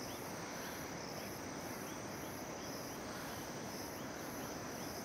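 Steady chorus of crickets and other insects, with a high pulsing trill about twice a second and faint short chirps repeating over it.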